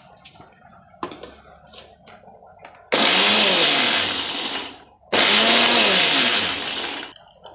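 Mixer grinder motor run in two short pulses of about two seconds each, with a brief stop between them, coarsely grinding dry roasted basmati rice in a small steel jar. The pulsing breaks the rice into a rava-like grit rather than a fine powder. A knock about a second in comes before the first pulse.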